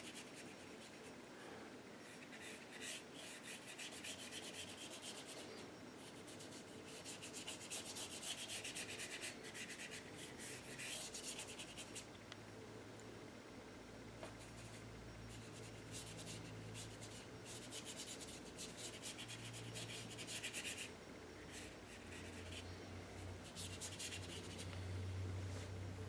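Paintbrush bristles rubbing and scrubbing acrylic paint onto canvas, a faint, continuous scratchy brushing as the paint is laid on and blended.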